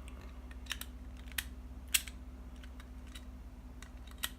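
A few scattered light clicks and taps, the sharpest about two seconds in, from the FAC double-bit safe lock and its key being handled, over a steady low hum.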